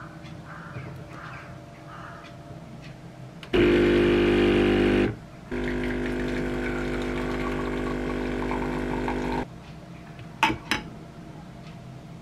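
De'Longhi espresso machine's pump humming while it pulls a shot: a loud steady hum for about a second and a half, a brief stop, then a slightly quieter steady hum for about four seconds that cuts off suddenly. Two sharp clicks follow near the end.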